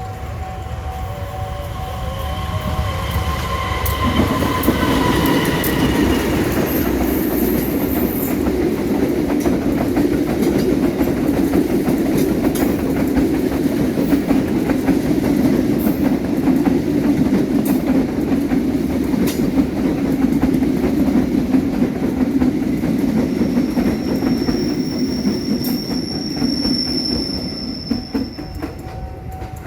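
A train sounds its horn, a pitched blast that sags slightly in pitch as it ends, then passes close by for over twenty seconds with loud wheel rumble and clickety-clack over the rail joints. A high wheel squeal rings out for a few seconds near the end, before the noise dies away.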